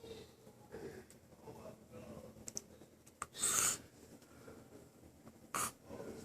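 A sleeping man's loud, hissy nasal breaths: one of about half a second roughly three and a half seconds in, and a shorter one near the end, with a few faint clicks just before the first.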